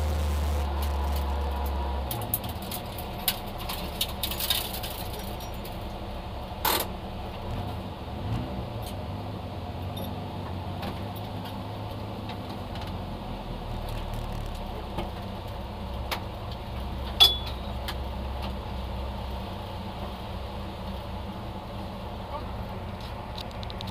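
Citroën AX GTI rally car's engine heard from inside the cabin, running at low revs: louder for the first two seconds, then settling to a lower steady drone as the car idles and creeps along. Scattered clicks and knocks from the cabin, the sharpest about seven and seventeen seconds in.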